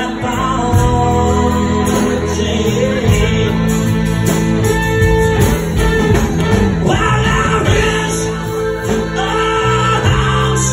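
Live band playing a song: electric bass, acoustic guitar and fiddle, with a male singer.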